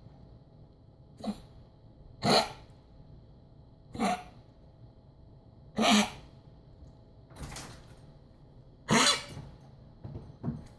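A dog coughing in a persistent bout: short single coughs come about every one and a half to two seconds, with the longest and loudest about nine seconds in.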